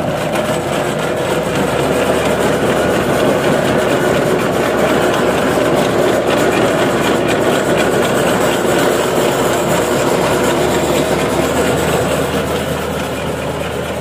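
Compact tractor's engine running steadily under load as its PTO drive line turns a potato digger, the digger's conveyor rattling and clattering as it lifts soil and potatoes.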